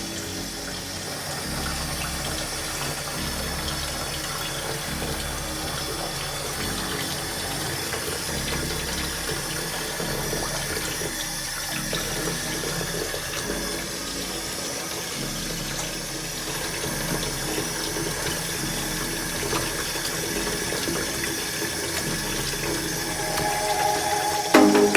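Tap water running steadily into a sink. Music comes in at the very end.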